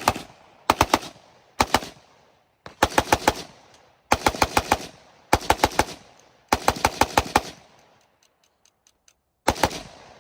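Full-auto firearm fired in about eight short bursts of two to six rapid rounds each, with brief pauses between bursts and a longer pause before the last one near the end.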